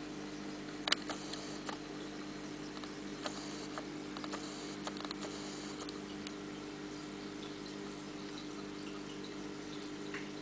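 Aquarium pump humming steadily under a faint wash of bubbling water. A sharp click comes about a second in, then a scatter of small ticks and drips over the next few seconds.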